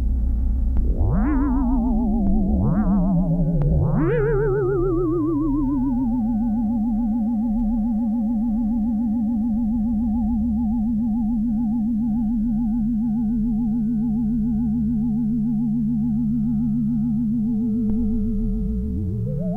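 Experimental industrial ambient electronic music. Wavering synthesizer tones swoop up and glide back down three times in the first few seconds, then settle into one long wavering tone over a low drone. A new upward swoop begins near the end.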